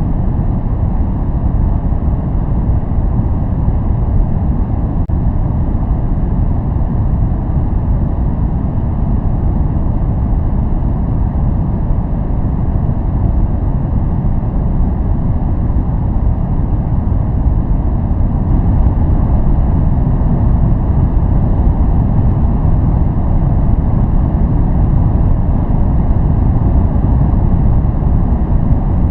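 Continuous noise track of the kind sold as white noise for focus, steady and without any tones or events, its weight in the low end so it sounds like a deep, even rumble rather than a bright hiss. It gets slightly louder and brighter about two-thirds of the way in.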